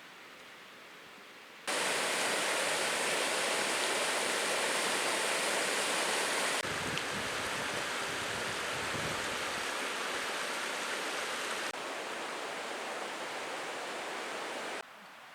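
Steady rushing water, like a stream or small waterfall, starting abruptly about two seconds in. It changes character twice, taking on a low rumble partway through, and cuts off shortly before the end.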